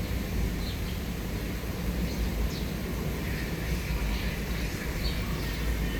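Steady low background rumble with a few faint, short high chirps.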